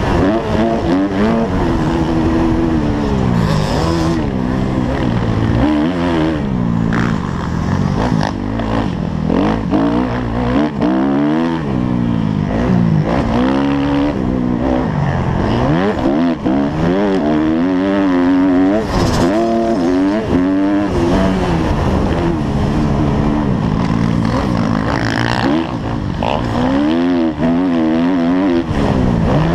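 Motocross bike engine heard from on board, revving up and dropping off again and again as the rider accelerates, shifts and backs off around a dirt track, over steady wind rush.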